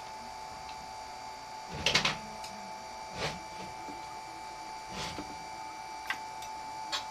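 Handling noises at a welding bench: a clatter about two seconds in as aluminium tube pieces are set in the vise, then softer rustles and two sharp clicks as the TIG torch is picked up. A steady hum sounds beneath it all; no arc is struck.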